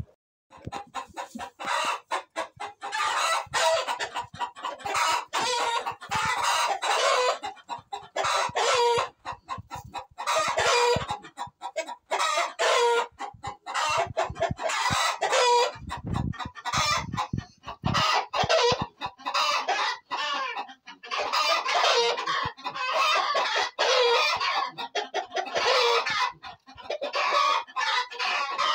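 A flock of chickens clucking and calling without a break, with rooster crowing among the calls and a few low knocks around the middle.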